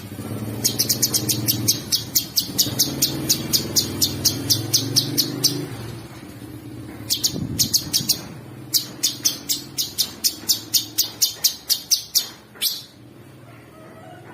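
Cucak sungkok songbird singing in long runs of sharp, rapid chips, about five a second. There are two runs separated by a short pause about halfway through. This is the coarse, non-stop rattling style of song ('isian kasar ngebren') that is used for training other songbirds.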